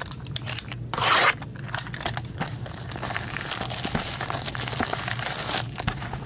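Gloved hands working open a sealed hockey card box: a short tearing rip about a second in, then steady rubbing and scraping of plastic wrap and cardboard.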